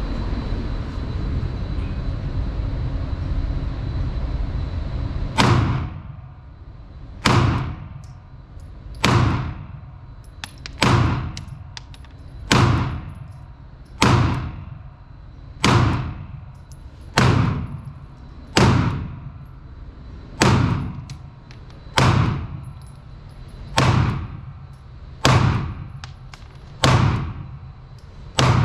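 A Taurus PT-92 AFS 9mm semi-automatic pistol firing about fifteen single shots at a slow, even pace, roughly one shot every 1.7 seconds, each with a short echo off the indoor range. The shots start about five seconds in, after a steady rushing noise that then cuts off.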